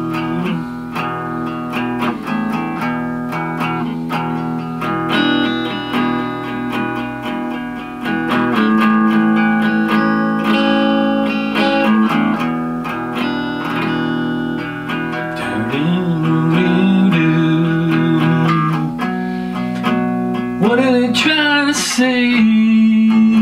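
Electric guitar playing an instrumental break in a blues song, ringing chords and single notes.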